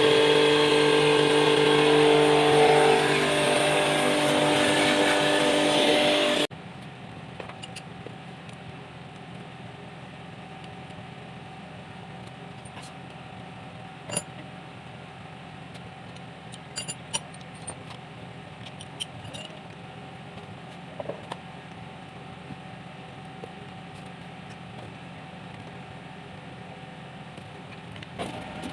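Kubota M9540 tractor's diesel engine running steadily at a constant speed; the breather smoke of this engine is put down to worn piston rings. About six seconds in the engine sound gives way abruptly to a low steady hum with a few scattered light clicks and taps.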